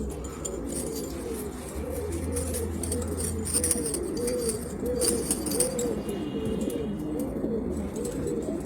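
Domestic pigeons cooing, many voices overlapping continuously, over a steady low hum.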